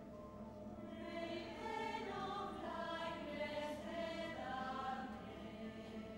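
Mixed choir of men's and women's voices singing a slow passage in long held notes and chords. The choir swells about a second in and softens again near the end.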